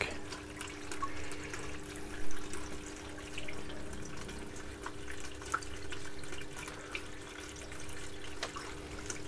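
Water trickling and dripping down through a pump-fed hydroponic strawberry tower, with a steady low hum underneath.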